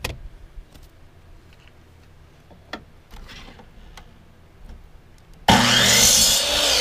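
A few light clicks and knocks of wooden strips being handled, then about five and a half seconds in a sliding compound miter saw starts with a sudden loud whine and runs, cutting a thin wooden strip.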